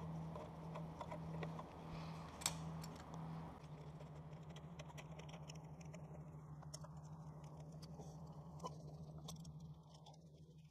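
Faint, scattered clicks and light rattles of hand tools and small engine parts being handled, including a ratchet with an extension, over a steady low hum.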